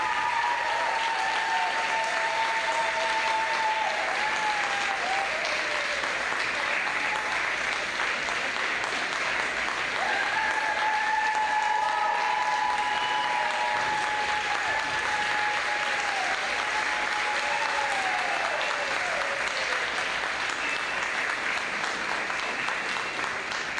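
Audience applauding steadily throughout, with a few long held tones over it in the first few seconds and again from about ten seconds in.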